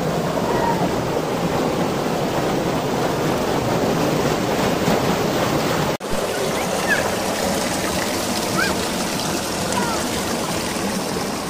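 Fast river water rushing and churning over rocks, a steady close-up roar of whitewater, broken briefly about six seconds in.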